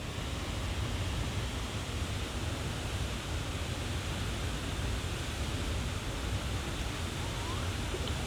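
Waterfall's steady rush of falling water. Near the end a faint rising whoop can be heard above it: a gibbon calling in the forest.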